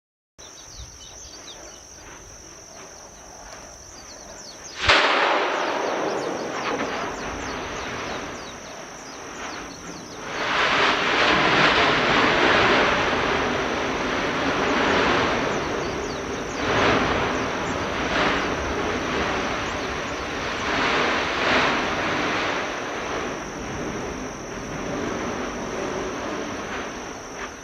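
Kīlauea's fissure 17 erupting. A sudden loud explosive burst about five seconds in is followed by a continuous rushing noise of lava fountaining and spattering, which swells several times.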